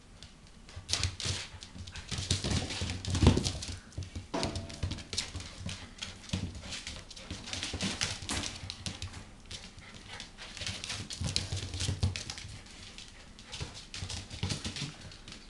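A black Labrador puppy and a Jack Russell terrier playing on carpet: irregular scuffling, paw patter and small knocks, with a short whimper about four seconds in.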